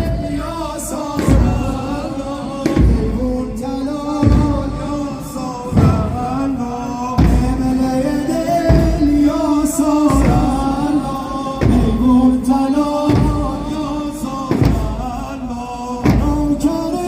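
Mourners' lament sung on long held notes over a heavy drum beat about every second and a half, the slow beat that keeps time for Muharram chain-beating (zanjir-zani).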